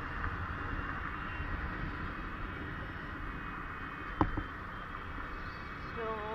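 Wind rushing over the microphone and a small motorbike engine running steadily while riding along a road, with one sharp knock about four seconds in.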